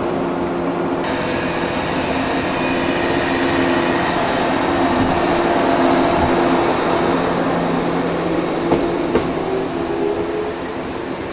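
A 115-series electric train pulling out of the station and rolling past: motors and wheels running with a few steady low tones, growing louder toward the middle, with a few sharp clicks over rail joints late on, then fading as it moves away.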